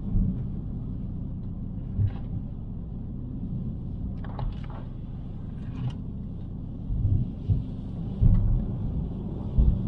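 Car driving on a wet country road, heard from inside the cabin: a steady low rumble from the engine and tyres, with a few faint ticks and several louder bumps, the biggest near the end.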